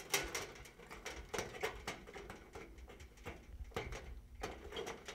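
Scattered light clicks and rustling as hands tuck wiring up under a sheet-metal tombstone bracket and press the bracket back into the light fixture.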